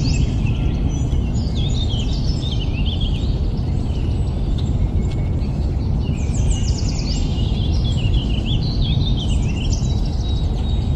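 Small birds chirping and trilling in clusters of quick high notes and falling sweeps, over a steady low rumble of outdoor background noise.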